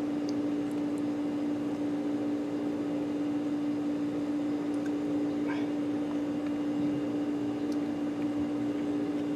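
A steady machine hum held on one low pitch, with a few faint clicks scattered through it.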